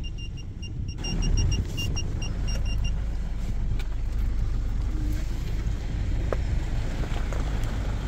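Road vehicle under way, a steady low rumble of engine and road noise that grows louder about a second in. A rapid electronic beeping, about four beeps a second, stops about three seconds in.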